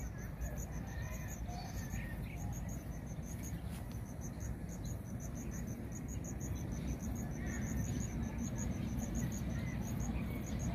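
Insects chirping in a fast, evenly repeated high-pitched pulse over a steady low rumble, with a few faint bird chirps.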